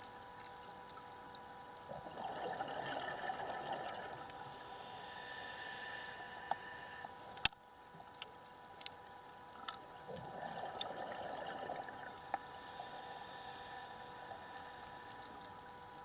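Scuba diver breathing through a regulator underwater: a burst of exhaled bubbles about two seconds in and again about ten seconds in, each followed by the hiss of an inhale. Scattered sharp clicks, the loudest about halfway through, over a faint steady hum.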